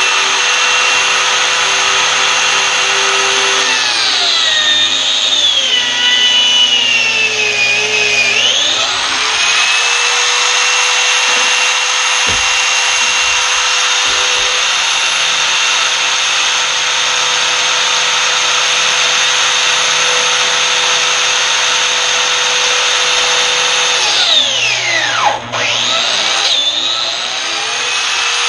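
Handheld electric power tool cutting wood, its motor running with a steady high whine. The whine sags in pitch as the tool bogs under load about four seconds in and again near the end, then climbs back to full speed.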